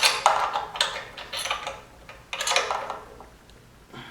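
Metal hand tool clicking and rattling in three short bursts while a carburetor mounting bolt is tightened on a small lawnmower engine.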